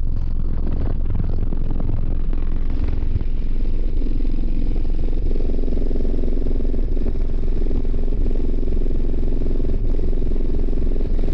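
Orion HCCA subwoofers playing loud deep bass in a car, the body and panels rattling with it. After about three seconds it settles into a steady drone of stacked tones.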